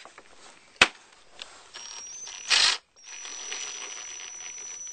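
Screwdriver work on a screw going into a plastic door-handle mount: a sharp click about a second in, then a louder burst of scraping and faint mechanical working, taken slowly so the screw does not strip the plastic.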